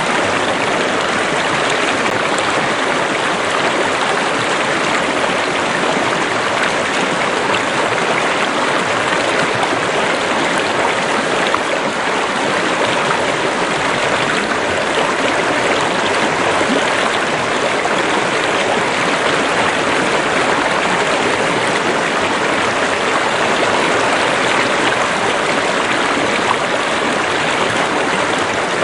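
Stream or river water running and splashing over rocks, a steady rushing sound without change.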